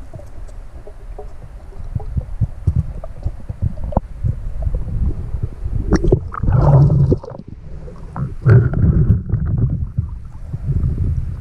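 Muffled underwater noise on a diver's camera: a low rumble with small clicks and knocks. From about six seconds in come louder bursts of water sloshing and gurgling around the microphone as the camera nears and breaks the surface.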